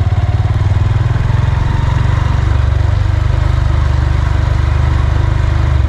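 Motorcycle engine running steadily at low speed while the bike is ridden, a loud, even putter of firing pulses.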